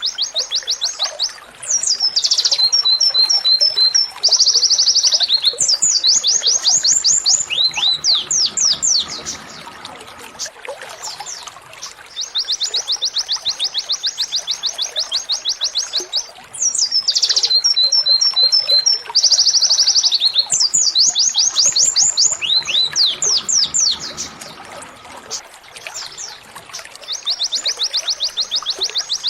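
Domestic canary singing long, fast trills of rapid repeated notes, broken by quick downward-sweeping notes. The same song sequence repeats about every 15 seconds, as a looped recording.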